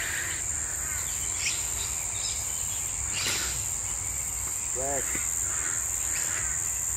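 Insects outdoors making a steady, high-pitched drone, with a few faint brief sounds over it.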